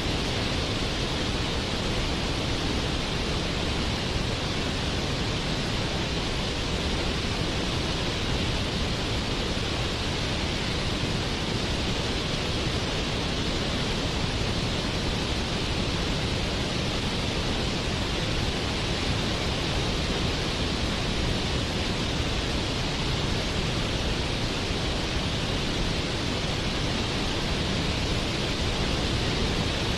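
Waterfall: water pouring and splashing, a steady rushing noise that never changes.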